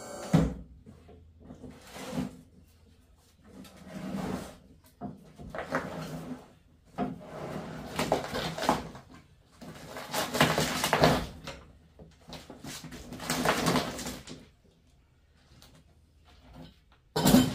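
Scrap being shifted and set down while loading a truck: irregular scraping, clattering and shuffling bursts, with a sharp knock just after the start and a short loud bang near the end.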